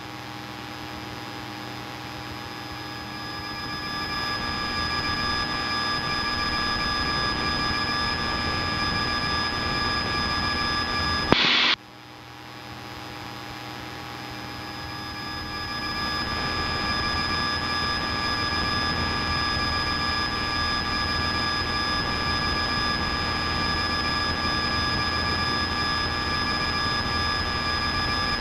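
Piper Cherokee's engine and propeller droning steadily in flight, heard in the cabin, with several fixed whining tones over it. About eleven seconds in, a brief burst of noise cuts in, and the drone drops away and then swells back up over a few seconds.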